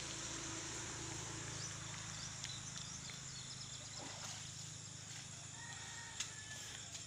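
Faint riverside ambience: a steady high insect chirring over a low, even hum, with a few light ticks and a brief distant call about six seconds in.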